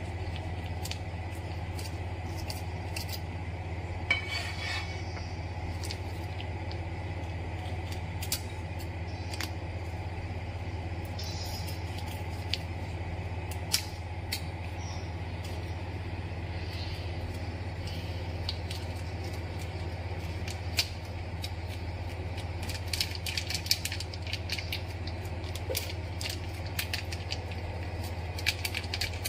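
Steady low hum of a portable gas stove under a wok of heating cooking oil, with scattered small ticks and crackles. Near the end comes a run of rapid crinkling and clicking as a plastic packet of spice paste is torn open over the pan.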